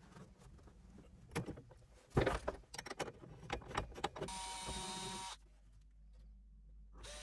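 Clicks and knocks from handling the charger and screws, then a DeWalt cordless drill whirring steadily for about a second as it drives a stainless steel screw into the mount. A second run of the drill starts right at the end.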